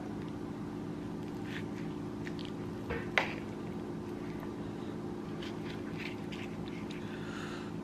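Serving spoon scooping into baked cauliflower mac and cheese in a stainless steel skillet: soft, squishy scraping sounds, with one sharp knock about three seconds in, over a steady low hum.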